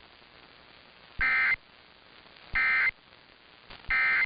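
Emergency Alert System end-of-message signal: three short bursts of SAME data tones, each about a third of a second long and about 1.4 s apart, marking the end of an alert message.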